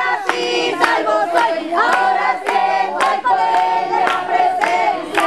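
A congregation singing a chorus together, accompanied by steady hand-clapping on the beat, about two claps a second.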